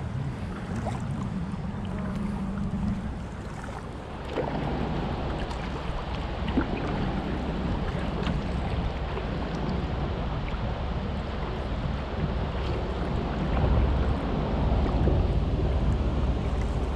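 Kayak paddle strokes dipping and splashing in choppy lake water, over steady wind rumble on the microphone that grows louder near the end.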